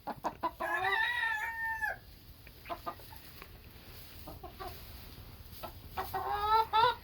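Chickens calling: a drawn-out pitched call about a second long near the start and another rising call near the end, with a few short, softer clucks between.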